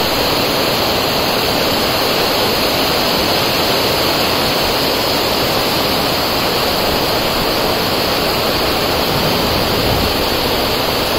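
Heavy rain pouring down over floodwater: a loud, steady rushing hiss with no breaks.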